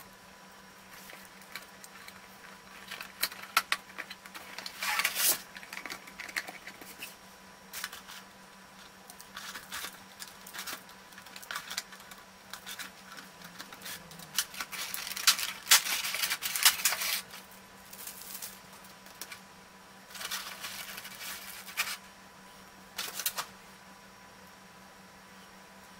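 Clear plastic figure packaging crinkling and rustling in several bursts as it is unwrapped by hand, with light clicks and taps of plastic parts, over a faint steady hum.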